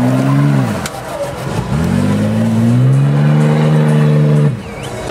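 Engine of a lifted Nissan Patrol off-road 4x4 under hard throttle. The revs drop about a second in, then climb and hold high as it powers up a dirt slope, and fall away suddenly near the end.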